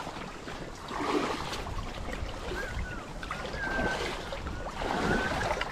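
Shallow creek water sloshing and splashing, with wind rumbling on the microphone. A few faint, short, high calls come from further off.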